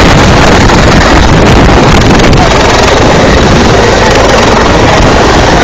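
Helicopter coming in to land: loud, steady rotor and turbine engine noise, with the rotor downwash buffeting the microphone.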